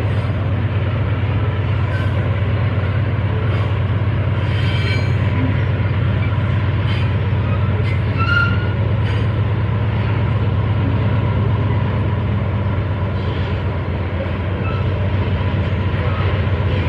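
Loaded or empty freight train rolling past with a steady low rumble. Scattered clicks and a brief squeal come from wheels on the rails.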